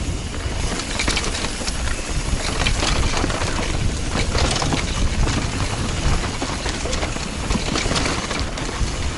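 Mountain bike descending a loose, dry dirt trail, heard from a camera on the rider: a steady rumble of tyre and wind noise with frequent rattles, clicks and knocks from the bike and stones under the tyres.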